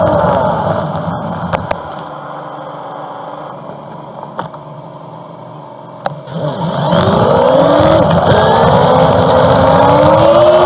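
1999 Honda Gold Wing 1500's flat-six engine on a four-times sped-up recording: it winds down coming to a stop, idles quietly for a few seconds, then revs up pulling away, its pitch climbing in two sweeps with a gear change between.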